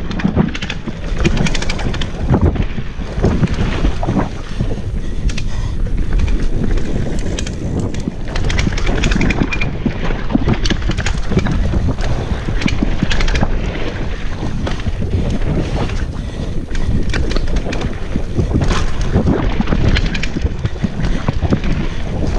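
Wind buffeting a helmet-mounted action camera's microphone on a fast downhill mountain-bike descent, over tyres rolling on a dirt trail. Frequent knocks and rattles from the bike run through it as it hits bumps.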